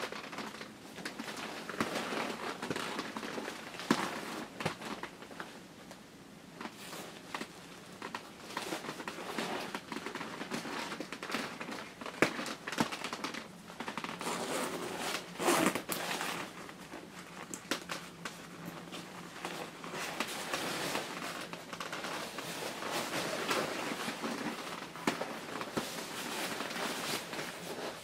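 Shiny padded nylon of a John Deere snowmobile suit rustling and swishing as the jacket is taken off: irregular crinkling of the fabric, with a few sharp clicks.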